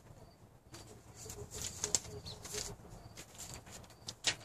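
Paper rustling in a few short bursts as sheets are handled and leafed through, with one sharper crinkle near the end.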